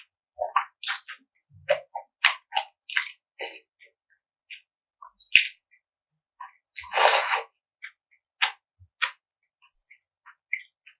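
Close-miked eating sounds: scattered short wet clicks and squishy mouth noises of chewing, with one longer wet burst about seven seconds in.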